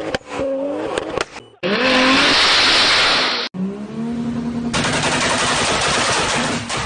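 Toyota Supra Mk3 engines revved up onto a 2-step launch limiter and held there, the exhaust firing rapid crackling pops and bangs over a steady engine note. It comes as three short clips, with abrupt cuts about a second and a half in and again about halfway.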